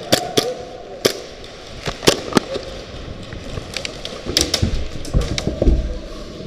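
Airsoft guns firing scattered single shots: about a dozen sharp cracks and clicks at irregular intervals, with a low rumble about five seconds in.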